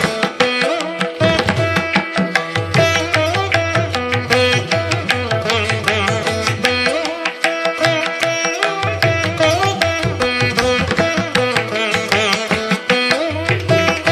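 Instrumental background music in an Indian classical style: plucked strings over quick, steady hand-drum strokes.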